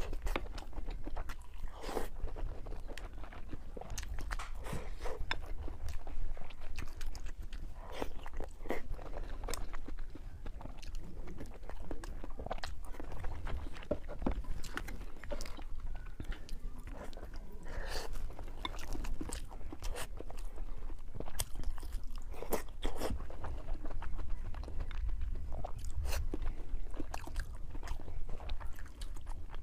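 Close-up eating sounds of a person biting and chewing fried pork: irregular wet crunches and crackles, with open-mouthed chewing throughout.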